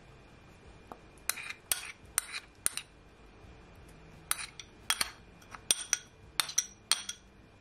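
Spoon clinking and scraping against a small glass bowl as wet jerk marinade is scooped out onto the wings: a few short clinks, a pause, then a quicker run of taps.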